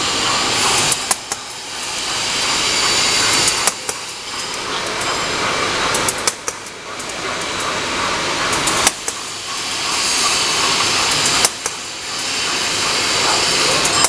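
Pull-up diaper making machine running: a loud steady whirr and hiss that swells and then drops with a sharp click about every two and a half seconds.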